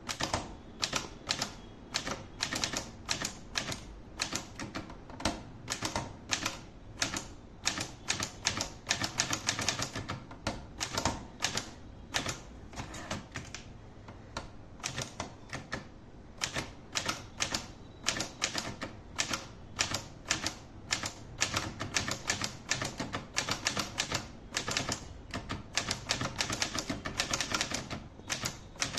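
Olivetti Lettera 22 portable manual typewriter being typed on: a continuous run of sharp key strikes, several a second, at an uneven typing pace with brief pauses between runs.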